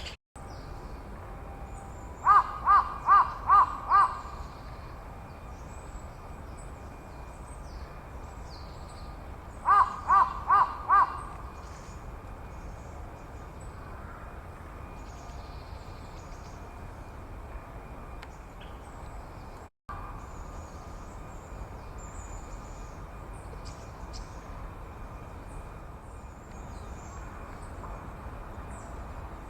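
A crow cawing in two runs, five caws and then four a few seconds later, the loudest sound. Faint, thin, high calls of small birds come and go throughout.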